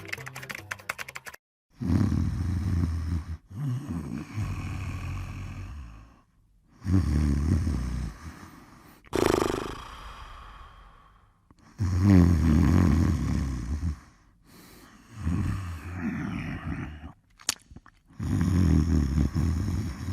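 A sleeping person snoring slowly: four loud, low snores of about two seconds each, each followed by a quieter breath, one of them with a brief high whistle.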